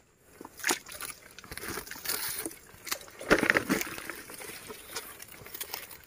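Sloshing and rustling in a shallow, muddy forest stream among undergrowth, with a louder splash a little over three seconds in.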